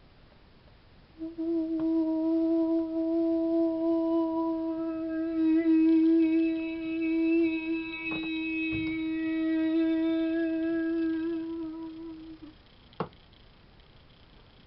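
A woman's voice humming one long steady note that gradually opens into a fuller, brighter tone before stopping. A single sharp knock follows shortly after.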